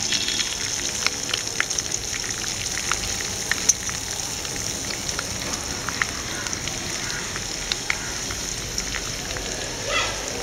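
Fresh mint and coriander leaves sizzling in hot oil in a pan: a steady hiss with many scattered small crackles and pops.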